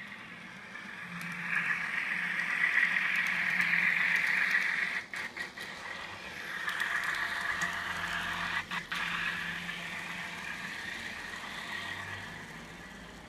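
Onboard sound decoder of an N scale FPA-4 model locomotive playing its diesel sounds through a tiny speaker, growing louder about a second in as the train runs close. The sound cuts out briefly twice partway through.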